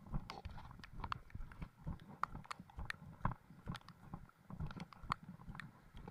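Footsteps on a dirt forest trail covered in dry leaves: quick, uneven steps, about two to three a second, each a soft thud with a crisp crunch.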